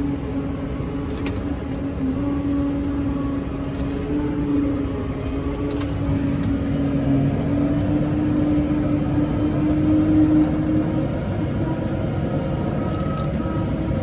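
Case Maxxum 125 tractor's diesel engine running steadily under load while pulling a five-furrow reversible plough through the soil, with a constant drone.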